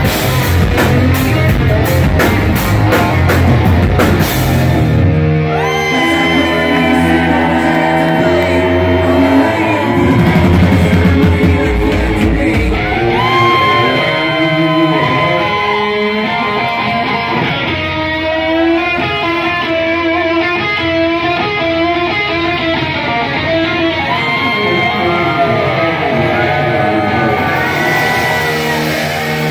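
A rock band playing live, led by an overdriven electric guitar. Drums and cymbals pound for the first few seconds, then drop away. Long, bending, sustained electric guitar notes carry on over a bass that fades out about halfway through.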